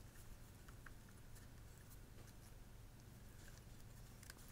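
Near silence: room tone with a steady low hum and a few faint small clicks.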